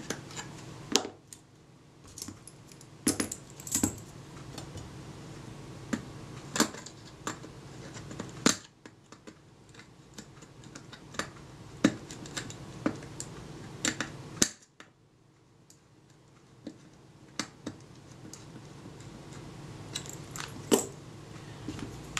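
Light, irregular clicks and taps of a small hand tool and a tiny screw against the metal shutter plate of a 1920s APM box camera as the screws are fitted.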